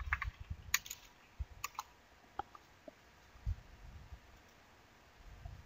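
Faint computer keyboard keystrokes and mouse clicks, a scattering of light clicks most of them in the first two seconds, with a dull low bump about three and a half seconds in.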